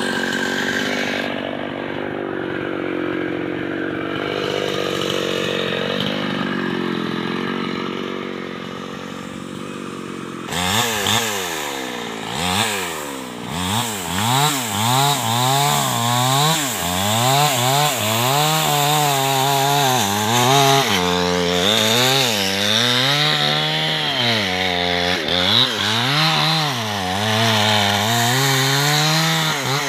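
Small chainsaw engine running at a steady low speed for about ten seconds, then revved hard and cutting into a large tree trunk. Its pitch rises and falls again and again as it cuts.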